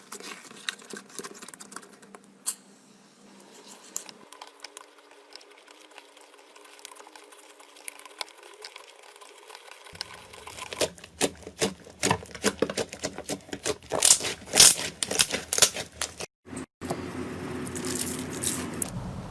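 Slime being squished, poked and stretched by hand, making a run of sticky clicks, crackles and small pops that get louder and busier past the middle. It is heard as several short clips spliced together.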